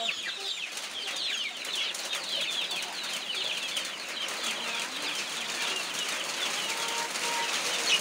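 A flock of free-range chickens feeding, with many young birds peeping continuously in short, high, falling chirps. Two brief lower calls come near the end.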